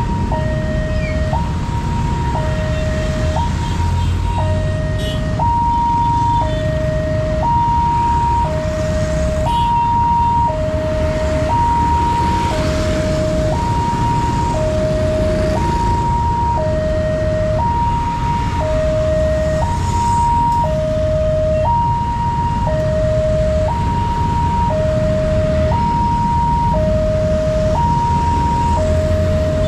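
Railway level crossing warning alarm sounding an electronic two-tone signal, alternating between a high and a low tone about once a second. Under it runs a steady low rumble of vehicles.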